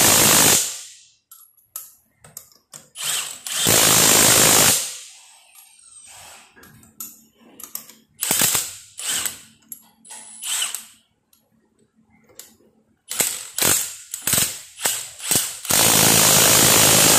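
Milwaukee mid-torque cordless impact wrench driving wheel lug nuts back on. Three long bursts of hammering and, between them, a run of short trigger pulls.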